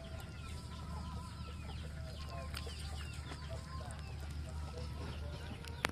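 Chickens clucking, with many short high peeping calls, over a steady low rumble. A sharp click sounds once just before the end.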